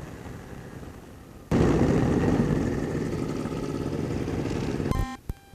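Engine and airflow noise of a two-stroke ultralight aircraft in flight, heard through the cockpit audio. It jumps up suddenly about a second and a half in, holds steady for about three and a half seconds, then cuts off abruptly with a couple of clicks.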